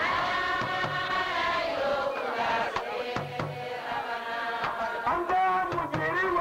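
Live singing: a voice holding long, slightly wavering notes, over an accompaniment of short, sharp percussive strokes.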